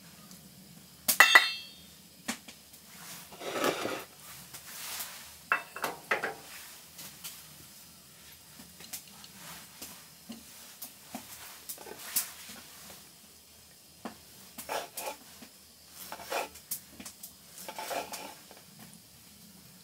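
Scattered clinks, knocks and scrapes of dishes and utensils being handled. The loudest is a sharp, ringing clink about a second in.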